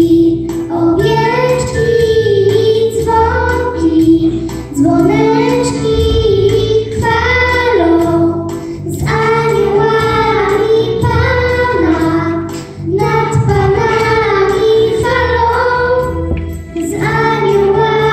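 Two young girls singing a song together into microphones, in phrases of a few seconds with short breaths between, over a low accompaniment.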